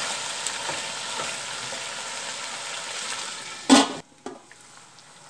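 Pork leg sizzling and frying in its cooked-down sauce in an aluminium pot, with small scrapes and clicks of a spatula turning it; the liquid has reduced so the meat now fries. About three and a half seconds in, the aluminium lid clanks once onto the pot and the sizzling drops to a faint hiss.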